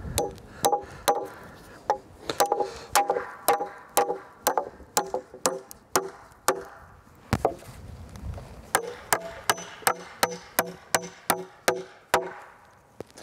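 Hammer driving nails through a 2x4 into a cedar log: a long run of sharp, ringing strikes, about two or three a second, with a short break around the middle.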